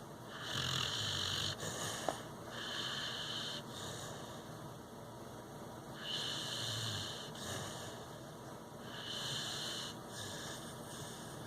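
Snoring: slow, hissing breaths every two to three seconds, a low rattle in the first and third. A single small click about two seconds in.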